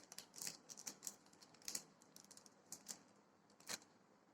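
Faint, irregular crinkles and ticks, about a dozen, from hands handling cheese, likely a wrapped cheese slice, while laying it on a sandwich as its third layer.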